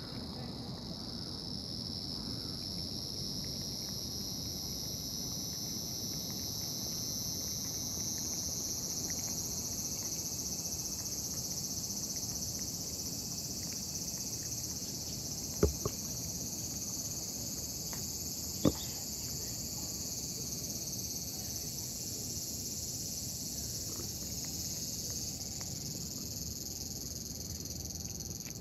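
Steady high-pitched drone of insects, rising slightly in pitch, over a low outdoor background noise, with two sharp clicks near the middle, about three seconds apart.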